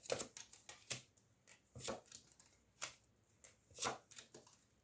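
Tarot cards being handled on a table: a scattered series of short taps and brief card slides.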